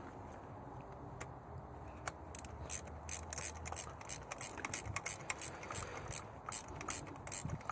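Ratchet wrench with a spark plug socket clicking in repeated strokes as it turns a new spark plug into the cylinder head. The clicks begin about two seconds in, roughly three to four a second.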